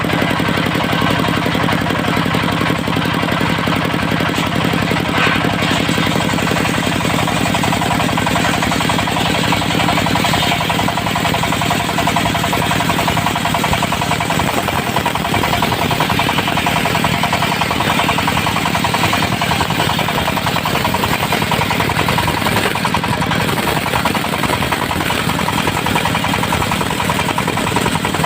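Portable diesel-driven circular sawmill running loud and steady. About ten seconds in its even hum turns rougher and noisier.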